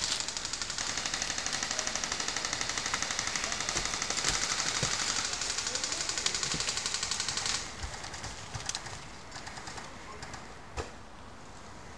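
Airsoft gun firing one long full-auto burst, a fast, even rattle of about fifteen shots a second that stops suddenly about seven and a half seconds in. A few scattered clicks and knocks follow.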